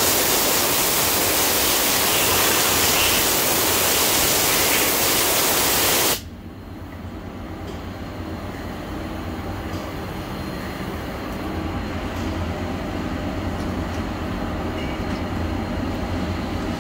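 Compressed-air blow gun hissing loudly as it blasts chips and coolant off a turned steel part in a CNC lathe, cutting off suddenly about six seconds in. After it stops, the lathe's low, steady machine hum remains.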